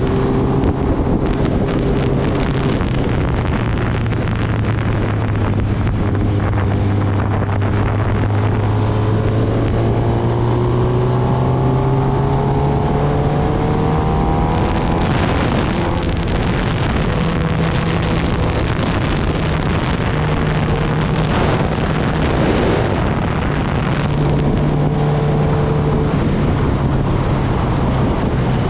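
Kawasaki Ninja ZX-10R's inline-four engine running under way. Its pitch climbs gradually in the first half as the bike accelerates, then holds steadier with small changes. Wind buffets the microphone now and then.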